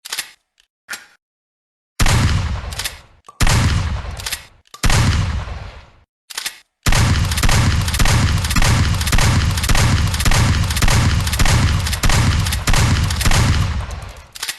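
Gunfire: a few short clicks, then three single shots about a second and a half apart, followed by a rapid unbroken string of shots that fades away just before the end.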